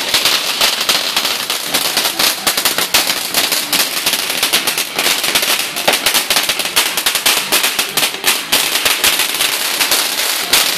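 Ground fountain firework spraying sparks with loud, dense, rapid crackling, a continuous stream of sharp cracks that cuts off abruptly near the end.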